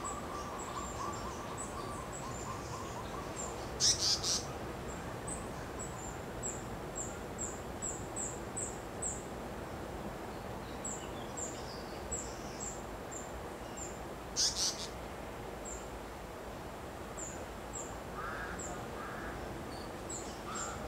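Wild birds calling over a steady background hiss: a long run of short, very high chirps, about two a second, with a rapid lower trill in the first few seconds. Two brief, louder harsh bursts come about four and fourteen seconds in.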